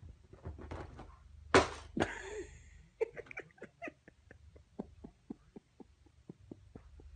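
A cat chattering: a run of short clicking chirps, about four or five a second at first, then slowing and fading. Two louder, sharp sounds come just before it, about a second and a half to two seconds in.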